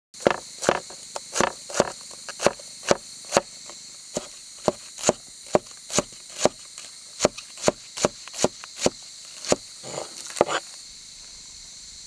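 Cleaver chopping green onions on a wooden cutting board: sharp knocks at about two strokes a second, with a quicker run of lighter strokes near the end before the chopping stops. Insects trill steadily in the background.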